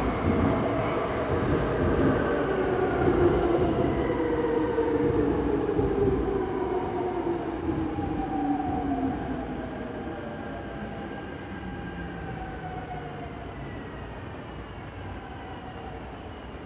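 Seoul Subway Line 5 electric train running into an underground station as it brakes: a rumble with a whine that falls steadily in pitch as it slows. It grows quieter through the second half, with a few faint high squeals near the end.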